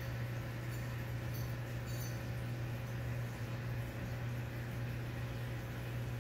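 Aquarium equipment running with a steady low hum and no change in level, with a few faint ticks in the first two seconds.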